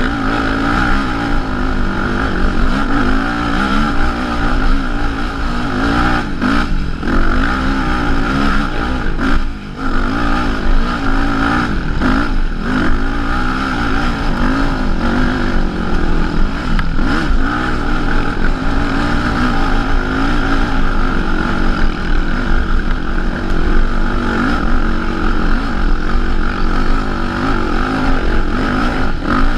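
ATV engine running and revving up and down with the throttle as the quad climbs a rough dirt trail, with a brief drop about nine and a half seconds in.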